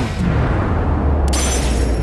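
Cartoon sound effects: a deep low boom and rumble, with a sudden sharp noisy hit about a second and a quarter in.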